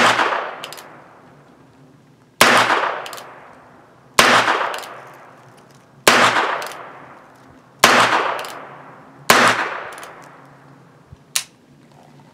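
Herbert Schmidt Model 21S single-action .22 LR revolver fired six times, one shot every one and a half to two seconds, each crack followed by a short echo dying away. A light click sounds near the end.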